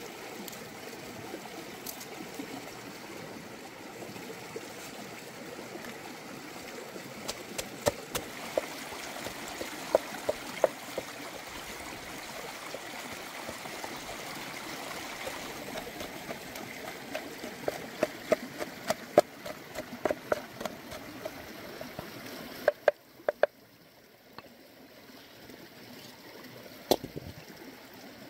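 Stream flowing steadily, with clusters of sharp knocks from a wooden pestle pounding red chilies in a wooden mortar. The stream sound drops away about three-quarters of the way in, leaving one more knock near the end.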